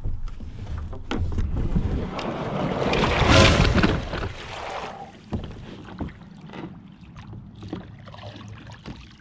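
Plastic sit-on-top fishing kayak being launched down a steep bank into a lake: knocks and scraping, then a loud rush of splashing water about three seconds in as it enters and water washes into the hull, followed by lighter knocks.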